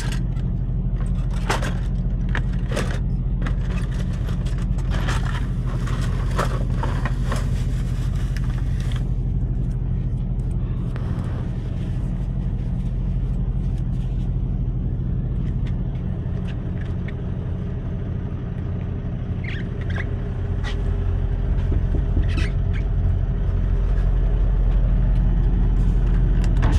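Plastic wrap and cardboard crinkling and clicking as items are handled in a box, busiest in the first several seconds, over a steady low hum inside a semi truck cab.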